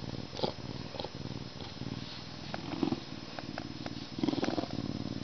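Lynx purring steadily as its head is rubbed, the purr swelling louder twice, near the middle and towards the end. A few clicks sound over it.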